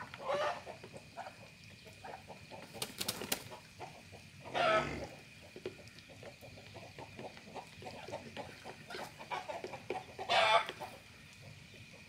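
Chickens clucking, with three louder calls about half a second long: one right at the start, one around five seconds in and one near the end, and softer clucks and small clicks between them.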